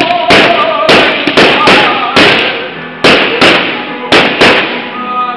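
Fireworks finale: aerial shells bursting in a rapid, uneven run of loud bangs, about two a second.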